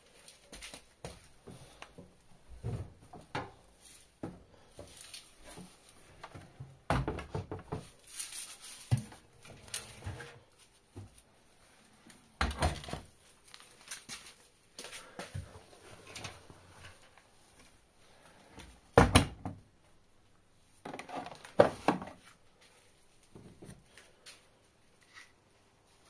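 Handling sounds at LG front-loading washing machines: an irregular run of knocks, clicks and clunks from doors and detergent drawers being moved, with several louder thuds spread through and softer rustling between.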